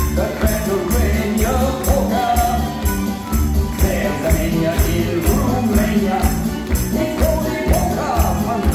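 Upbeat recorded music with a steady beat and a bright jingling percussion layer.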